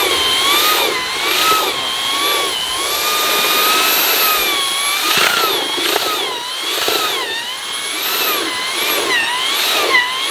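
Handheld electric paddle mixer churning concrete in a plastic bucket. Its motor whine rises and dips in pitch again and again as the load of the thick mix changes.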